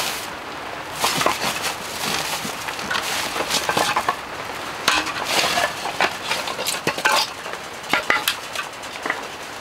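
Split firewood and thin wooden boards being handled and set down: scattered dry wooden clacks and knocks with rustling, over a steady hiss of rain.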